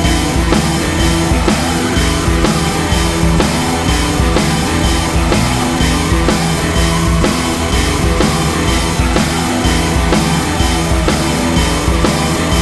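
Rock music with a driving drum beat and guitars.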